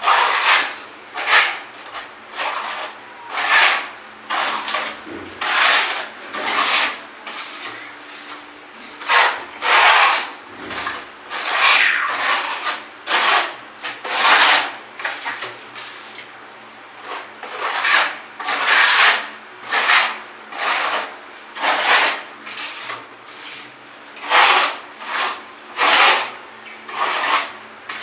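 A hand tool scraped repeatedly across a rough surface in long rasping strokes, about one a second, with brief pauses about a third and about halfway through.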